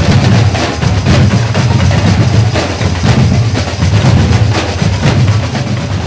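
A batucada percussion band playing a continuous samba groove: deep bass drums with snare and other drums over them.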